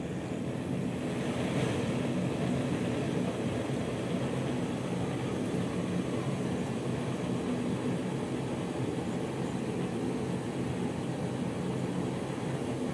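Outad steel windproof gas stove burning at full flame just after being lit: a steady rushing hiss of gas through the burner, swelling slightly in the first second or two and then holding even.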